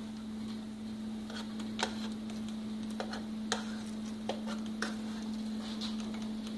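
Metal kitchen tongs clicking and scraping against a foil-lined baking sheet as baked chicken breasts are flipped, about six or seven sharp clicks at uneven intervals over a steady low hum.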